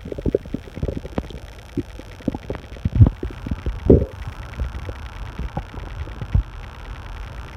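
Human stomach growling loudly: irregular low gurgles and short pops, with louder rumbles about three and four seconds in.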